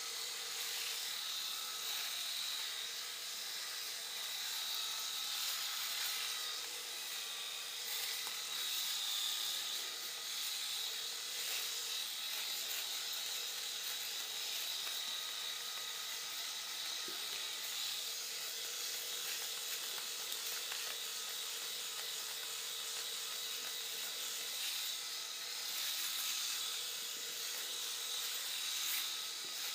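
Cordless electric razor running steadily as it is shaved over a man's face: a constant motor hum with a hissy rasp, the level swelling and dipping slightly as it moves over the skin.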